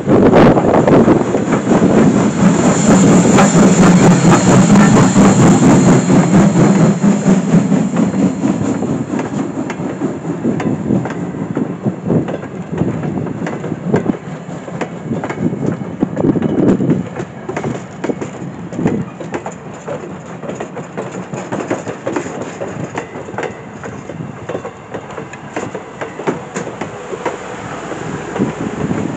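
Norfolk & Western steam locomotive No. 475's tender and a string of passenger coaches rolling past close by, wheels clacking over the rail joints. A heavy low rumble is loudest at first and fades over the first several seconds, leaving the steady roll and clicks of the coach wheels.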